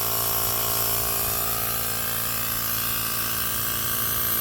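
A small motor running steadily, with a high, even hiss over it.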